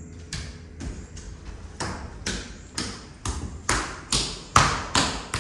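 A steady run of sharp taps, about two a second, growing louder to a peak about four and a half seconds in.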